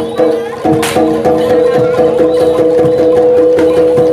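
Live jaranan (kuda lumping) ensemble music: drums and struck percussion beat a quick, even rhythm under a long held note. A single sharp crack sounds a little under a second in.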